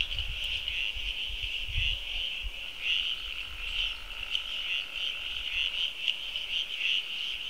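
Small tree frog calling with its throat sac puffing out: short high-pitched notes repeated at irregular intervals over a steady high-pitched night chorus.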